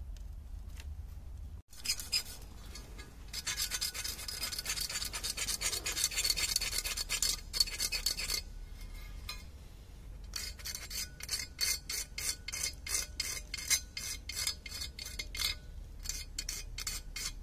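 A small knife scraping old sealant off the mating flange of an engine's crankcase-breather cover, cleaning the sealing surface before new sealant goes on. The scraping starts about two seconds in, stops briefly around the middle, then goes on in quick repeated strokes.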